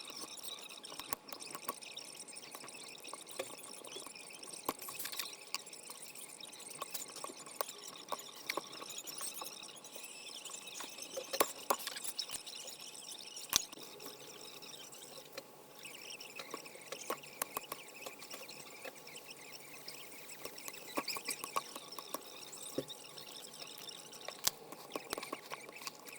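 Scattered light clicks and taps from hands working on a car door lock mechanism, over a steady faint hiss.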